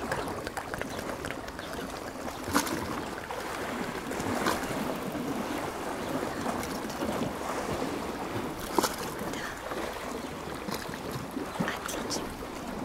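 Sea waves washing in: a steady rush of water, with a few sharp clicks now and then.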